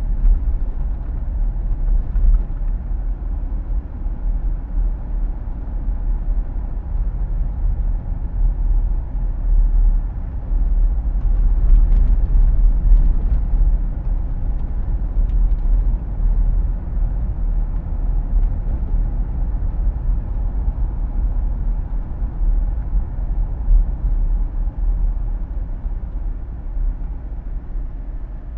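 Car cabin noise while driving: a steady low rumble of tyres and engine on the road, with the air conditioning fan's hiss on top.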